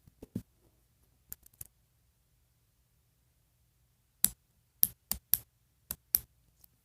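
Sharp clicks and taps of a plastic doll and its clothes being handled while it is dressed. A few come in the first couple of seconds, then about seven in quick succession from about four seconds in.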